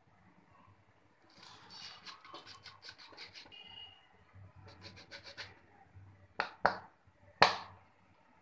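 Rim of a plastic lid scraping and crunching through a slice of white bread against a stone board as it is pressed and twisted round to cut a circle, in a run of short scratches. Three sharp taps follow near the end.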